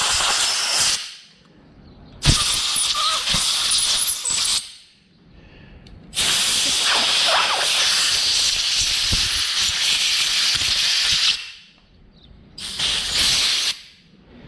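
Blasts of pressurised hissing from a nozzle cleaning out a string trimmer's disassembled carburetor. A blast stops about a second in, then three more follow: one of about two seconds, a long one of about five seconds, and a short one near the end.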